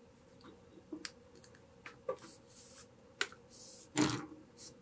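Small clicks and scrapes of handwork: paracord and its guide wire being pulled through holes in a wooden nunchaku section, with two short hissing scrapes of the cord sliding in the middle and a louder knock near the end.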